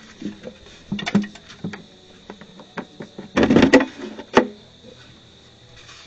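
Scattered clicks and knocks of tools and metal parts being handled, with a short clattering rattle about three and a half seconds in and a sharp knock just after.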